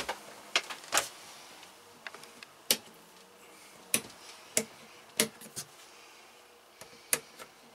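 Rocker switches on a 12-volt switch panel clicking as they are flipped: about nine short, sharp clicks at uneven intervals.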